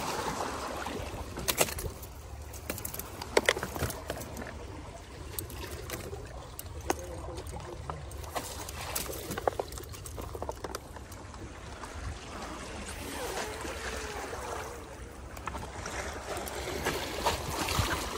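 Sea water washing and trickling among shoreline rocks, with a few sharp clicks and knocks scattered through.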